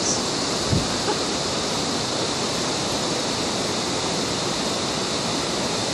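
Steady rushing of the Merced River, an even, unbroken noise of fast-flowing water.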